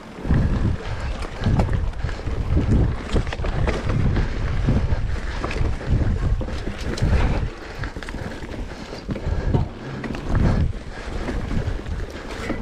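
Wind buffeting the microphone in uneven gusts, a low rumble that swells and drops.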